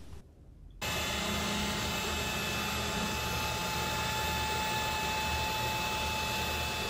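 CNC router spindle running with a steady whine, its bit cutting a shallow slot into a wooden frame board. The sound starts suddenly under a second in.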